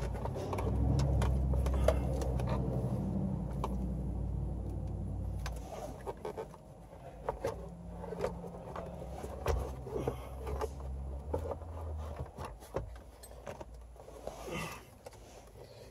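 Plastic blower motor housing knocking, clicking and scraping against the dash as it is worked up into a tight fit, with a low rumble over the first several seconds.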